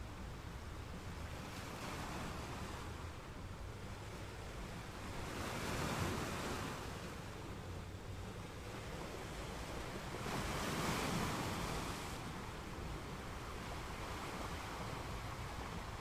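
Sea waves washing in and drawing back, swelling and fading, with two louder surges about six and eleven seconds in, over a steady low rumble.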